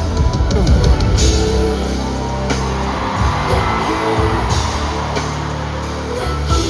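Loud live concert music from the audience's side of an arena: heavy sustained bass and drums, with no clear vocal line.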